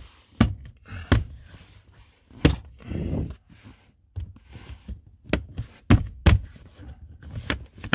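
Plastic interior trim panel being pushed and knocked into its clips in a car footwell: a string of sharp knocks and thuds, half a dozen strong ones spread unevenly, with some rustling between them.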